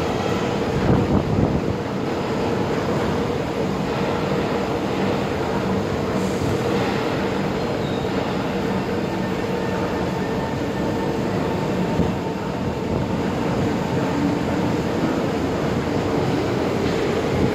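Steady hum and rumble of an MRT train at the station, with a steady tone running through it.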